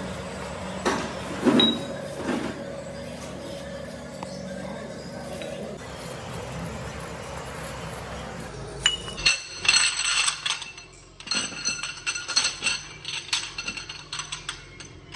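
Metal parts clinking and ringing against each other in a workshop, with a few knocks over a steady hum at first, then a quick run of sharp clinks through the second half.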